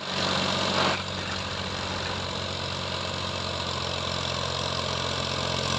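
Fiat 480 tractor's diesel engine running steadily, with a louder hissing rush in the first second that cuts off just before the second mark.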